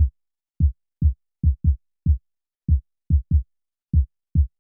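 Electronic kick drum, isolated from a full drum loop by EQ filtering, playing in a syncopated pattern: short low thumps, each with a quick drop in pitch, about eleven hits with silence between them. The hits are uncompressed.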